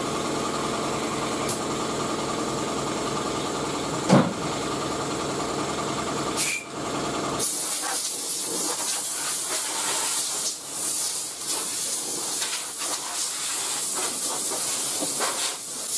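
Pneumatic dual-action sander running steadily on the engine-bay sheet metal. About seven and a half seconds in it gives way to a loud hiss of compressed air from a hand-held air nozzle, which swells and dips as it is aimed around the bay.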